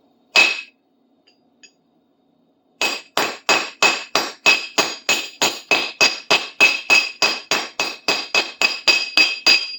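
A light framing hammer striking a bent steel screwdriver shaft laid on a heavy steel block, hammering the bend out. One blow, then after a pause a steady run of quick blows, about three or four a second, each with a ringing metallic clink.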